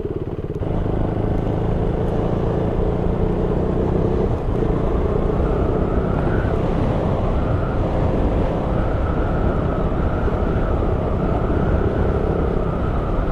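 KTM 390 Duke's single-cylinder engine running under way at a steady road speed, with wind noise over the microphone. The level picks up about half a second in, then holds steady.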